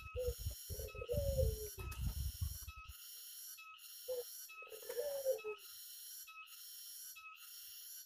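Barbary doves cooing: soft, low coos that fall in pitch, in the first two seconds and again about four to five seconds in. A low rumble sits under the first three seconds, and a high pulsing sound repeats about once a second throughout.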